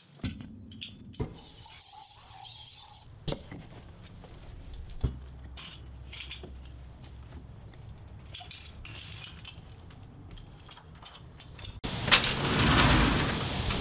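A few sharp knocks and clunks as a screen door is opened and a large cardboard box is carried out through it. About twelve seconds in, louder wind buffeting the microphone takes over.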